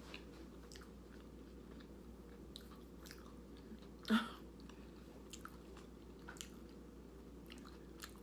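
A person chewing tortilla chips with taco dip: faint, scattered crunches, with one louder mouth sound about four seconds in.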